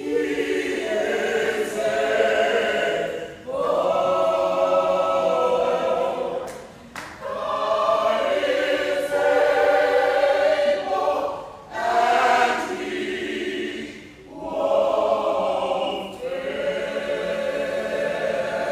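Gospel choir singing held chords in phrases of two to four seconds, with short breaks between them.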